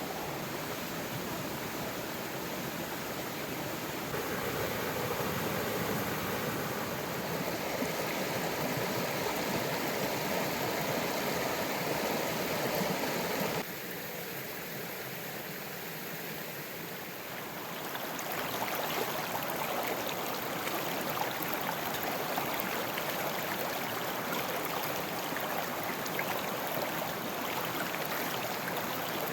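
Steady rush of running water from a river. It steps louder about four seconds in, drops off abruptly near the middle, and rises again a few seconds later.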